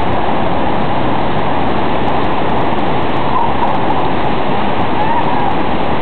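Waterfall rushing: a loud, steady noise of falling water.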